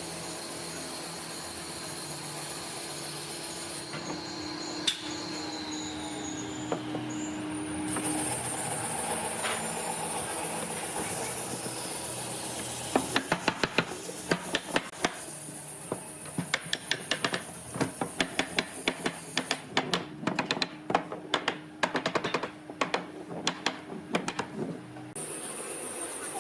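Woodworking shop sounds in short edited cuts: a steady hum for the first half, then from about halfway in a long run of sharp knocks, several a second, from tools striking wood.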